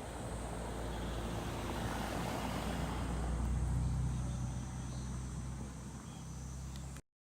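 A motor engine passing by, its low hum swelling to a peak midway and then fading, until the sound cuts off suddenly near the end.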